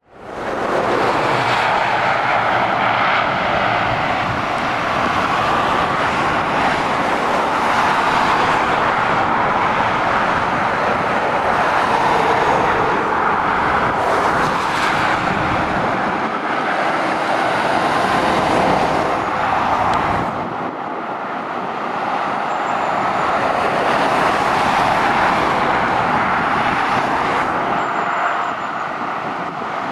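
Road traffic on a dual-carriageway motorway: heavy trucks and cars going by with steady tyre and engine noise that swells and eases as vehicles pass. It fades in at the start and drops briefly about twenty seconds in.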